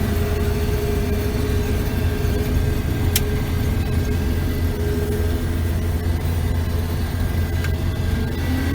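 A large farm machine's engine running steadily with a constant low drone, with a faint tick about three seconds in and another near the end.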